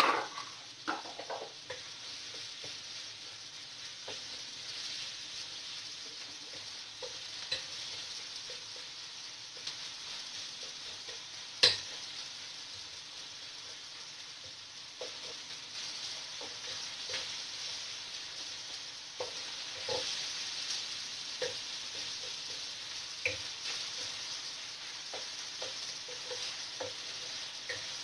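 Minced meat, onion and garlic sizzling in a stainless steel wok, with a wooden spatula stirring and scraping through it in small knocks against the pan. There is a clatter at the very start and one sharp knock about twelve seconds in.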